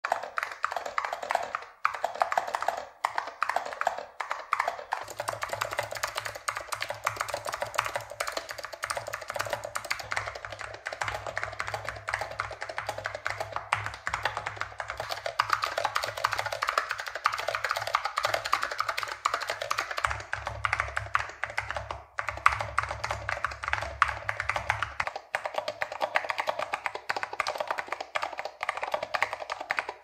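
Continuous fast typing on a mechanical keyboard with Alps-type key switches, Matias Click clicky switches among them: a dense clatter of crisp key clicks. A low steady hum runs underneath from about five seconds in until about five seconds before the end.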